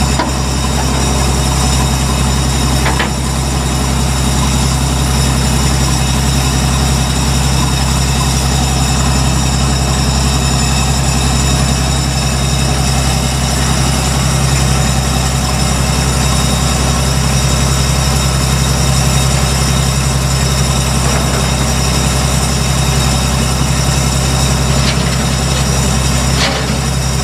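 Tracked rice combine harvester's diesel engine idling steadily, with a few light metallic knocks, once about three seconds in and twice near the end.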